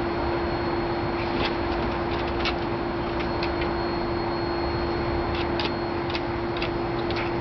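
Dog's claws clicking lightly on wooden deck boards as it steps about, a scattering of short ticks in two clusters, over a steady hiss and a constant hum.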